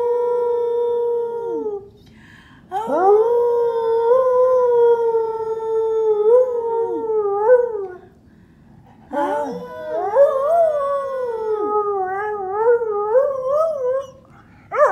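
English springer spaniel howling in long, held notes: a howl trailing off a couple of seconds in, then two more, the last one wavering up and down before it stops.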